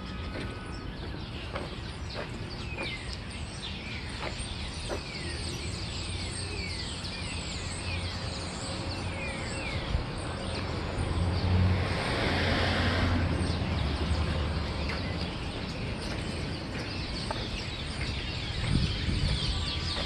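A large flock of birds calling: many short, falling chirps overlapping throughout. About midway a vehicle passes, a swell of road noise and low hum that is the loudest part.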